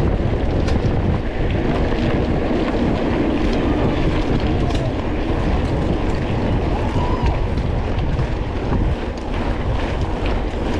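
Wind buffeting the microphone of a camera riding on a single-speed mountain bike at race pace, a loud steady rush, with scattered short rattles and clicks from the bike over rough ground.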